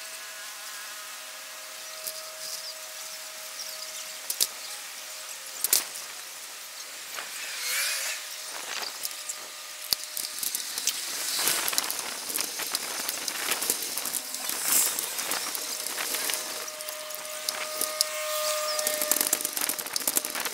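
Noise of a bicycle ride over city pavement: rattling, clicks and knocks from the bike and camera over street noise, with a steady thin whine at the start and again near the end.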